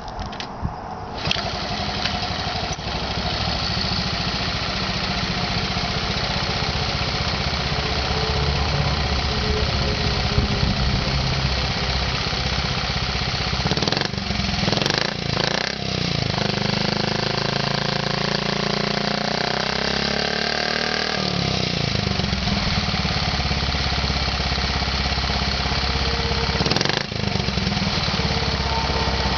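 Honda Z50 minibike's small four-stroke single-cylinder engine, kick-started and catching at the first kick about a second in, then idling steadily with no odd noises. Its revs rise and hold higher for a few seconds past the middle, then drop back to idle.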